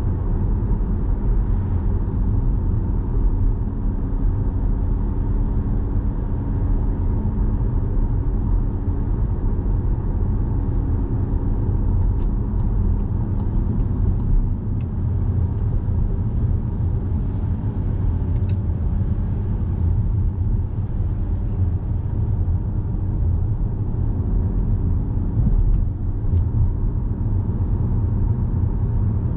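Car driving on the road: steady low rumble of the engine and tyres.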